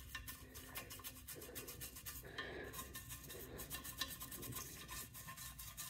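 Faint, irregular scratching and rubbing of a soft detailing brush working decarbonizer into the carbon buildup inside a metal exhaust tip.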